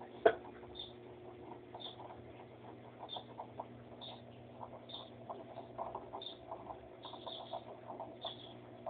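Electrolux LT60 top-loading washing machine running a wash cycle: a steady motor hum under many small irregular clicks and sloshing patters, with a faint high squeak about once a second and one sharper click just after the start.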